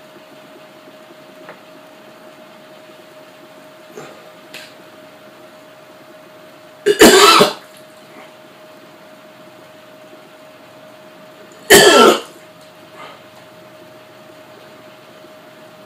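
A man retching twice, two short loud heaves about seven seconds in and again about five seconds later, with an overfull stomach from a cookie-and-milk eating challenge.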